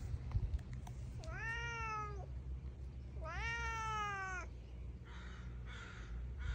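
Domestic cat meowing twice, each meow rising and then falling in pitch, the second one longer, a little over a second.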